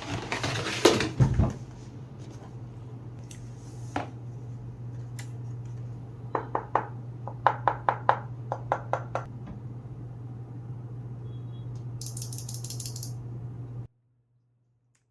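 ASUS ROG Azoth Extreme mechanical gaming keyboard being handled and pressed: scattered clicks and taps, with a run of about a dozen key clicks in the middle, over a steady low hum. The sound cuts off suddenly near the end.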